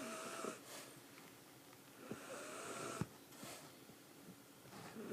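A sleeping pet snoring, one snore about every two and a half seconds, each with a whistling, wheezy pitch. One snore ends about half a second in, another comes at about two to three seconds, and a third begins near the end.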